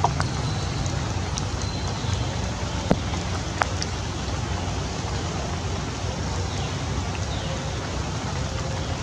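Steady rain falling on stone, an even hiss with a couple of sharp ticks about three seconds in.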